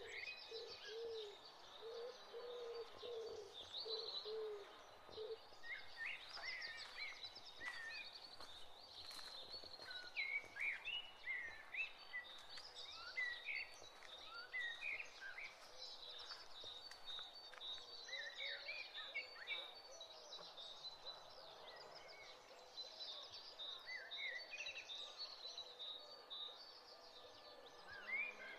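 Birds chirping and calling, many short high chirps throughout, with low repeated calls in the first five seconds.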